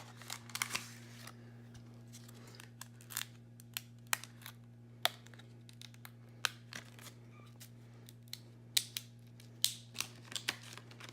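Plastic packaging of Corsair Vengeance DDR4 memory modules being handled and opened: scattered sharp clicks and crackles, over a steady low hum.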